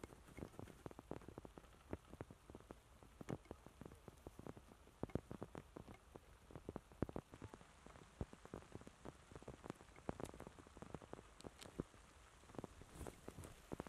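Faint, irregular crackling and rustling of movement through tall grass, made up of many soft clicks with a few sharper ones.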